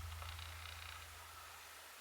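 The last low note of the background music fading out, leaving a faint hiss.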